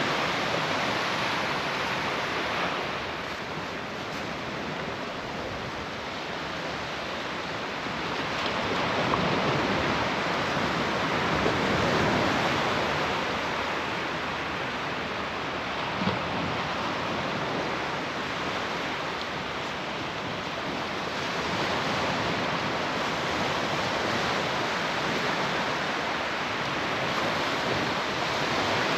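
Surf breaking and washing up the beach, a steady rushing that swells and fades over several seconds, with one small tick about 16 s in.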